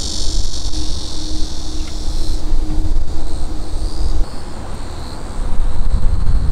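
A loud, uneven low rumble with a high insect-like buzzing over it; the buzzing drops away about two and a half seconds in.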